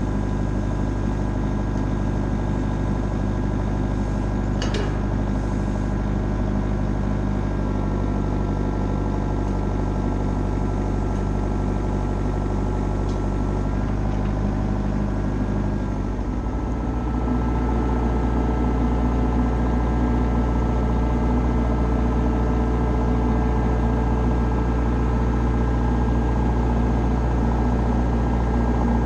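Excavator engine running steadily while it holds and lowers a steel frame; about sixteen seconds in, its note changes and it gets louder.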